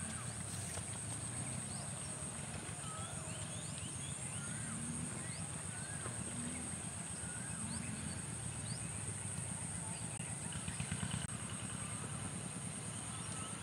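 Outdoor ambience: a steady high-pitched drone with scattered short chirps over a low rumble, and a brief louder moment about eleven seconds in.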